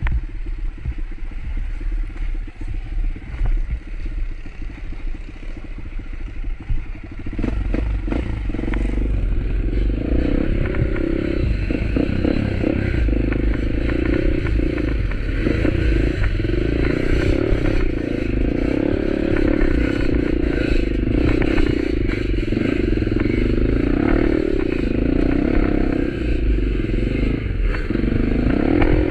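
Motorcycle engine running while riding, a steady drone that picks up and grows louder about seven seconds in.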